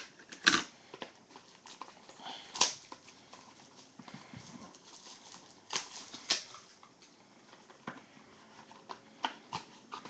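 Small cardboard trading-card boxes being handled and opened by hand: an irregular series of sharp taps and knocks, with faint rustling between them.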